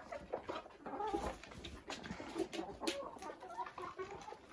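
Chickens clucking in a henhouse: short, soft calls scattered throughout, mixed with small clicks and taps.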